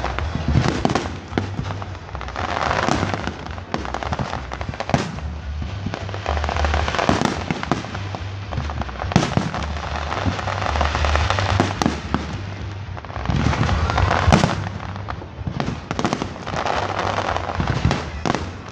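Aerial fireworks bursting in quick succession: repeated sharp bangs with crackling between them, with music playing alongside.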